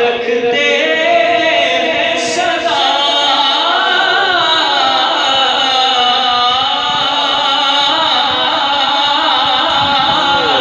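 Unaccompanied male singing of an Urdu devotional kalam into a handheld microphone, with long held notes that bend slowly up and down.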